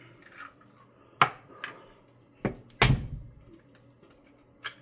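Eggs being cracked on the rim of a mixing bowl: a few sharp knocks of shell against the bowl, the loudest and heaviest about three seconds in.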